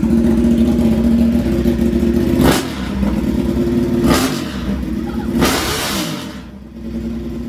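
Ducati 899 Panigale's V-twin running through an unmuffled custom exhaust, very loud, with three quick blips of the throttle about two and a half, four and five and a half seconds in. It settles back toward idle between blips.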